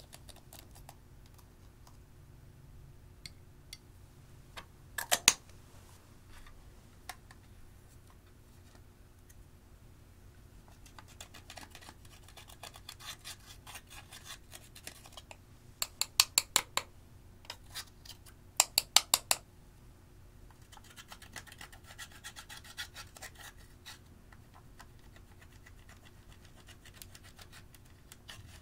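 Thin metal tool scraping and chipping pressed eyeshadow out of the pans of a plastic compact, a dry crumbly scratching. A few quick runs of sharp ticks and taps stand out as the loudest sounds.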